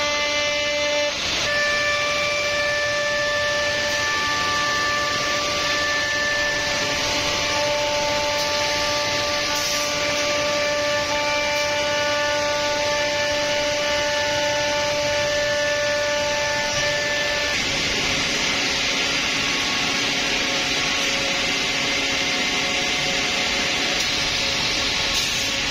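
Holztek CNC nesting router at work on boards: the spindle runs with a steady whine of several tones over the hiss of the cutting. About 17 seconds in, the whine changes pitch pattern and the cutting noise grows.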